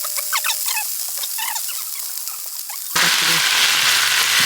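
Chicken and lemongrass paste sizzling in a hot pan, first with scattered crackles and pops, then about three seconds in a sudden change to a louder, steady frying hiss.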